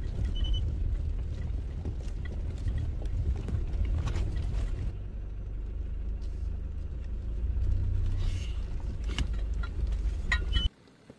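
Car driving slowly over rough gravel ground, heard from inside the cabin: a steady low rumble of engine and tyres with stones ticking and knocking against the car. It cuts off suddenly near the end.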